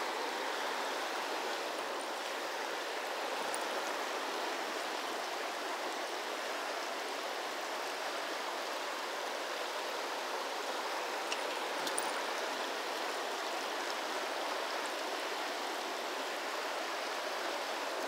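Steady rush of a shallow river running fast over a gravel and cobble riffle, even and unbroken throughout.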